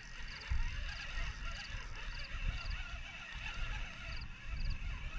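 Wind buffeting the microphone in uneven gusts of low rumble, over a steady outdoor hiss. A faint high chirp repeats about every half second throughout.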